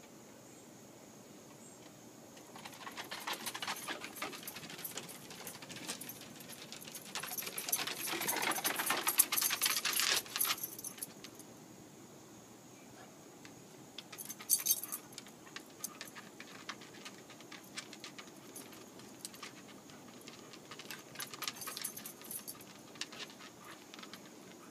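Two beagles playing on a wooden deck: a quick patter of claws on the boards and the jingle of collar tags, busiest for several seconds from a few seconds in, then a short burst and scattered clicks.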